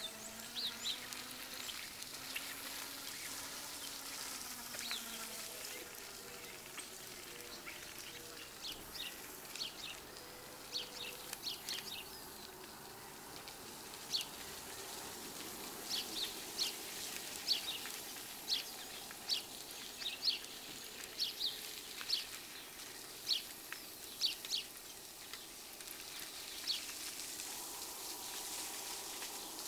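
Birds calling with short, high chirps, coming thick and fast in the second half, over a steady hiss.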